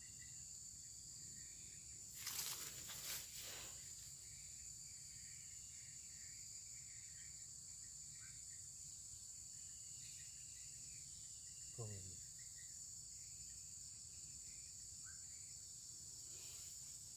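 Steady, high-pitched chorus of insects droning. About two seconds in there is a brief noisy rustle, and near twelve seconds a single short sound that falls in pitch.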